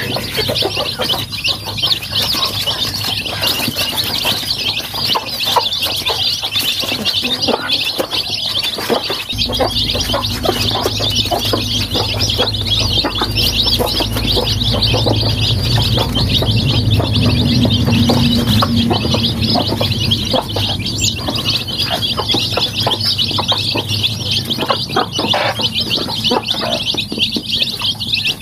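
A brood of young chicks peeping together in a dense, continuous high-pitched chorus. A low rumble sits under it from about a third of the way in until about two-thirds through.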